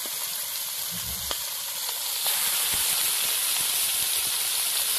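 Steaks of rohu fish frying in oil in a black kadhai: a steady sizzle with a few sharp pops, louder from about two seconds in. A short low bump comes about a second in.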